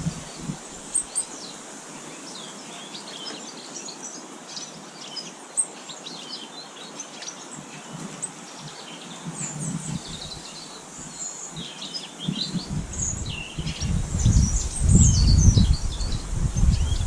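Small garden birds chirping and calling, many short high notes overlapping. About two-thirds of the way in a low rumble starts and becomes the loudest sound.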